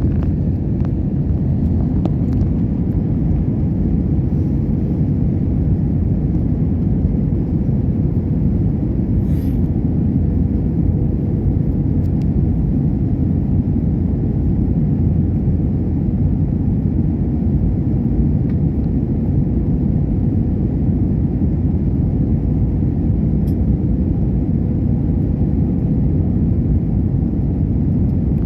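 Steady low rumble of an airliner cabin in flight, engine and airflow noise, with a faint steady hum on top.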